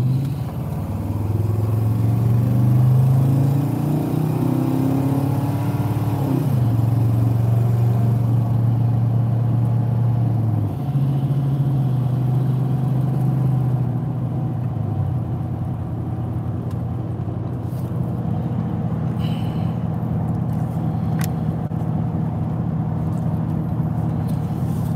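Vehicle engine and road noise heard from inside the cab while driving. The engine note climbs over the first few seconds, dips sharply about six seconds in, then settles into a steady hum.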